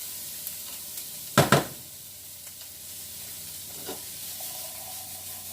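Garlic and onion sizzling in oil in a frying pan, a steady hiss, with one loud short clatter about a second and a half in and a fainter knock near four seconds.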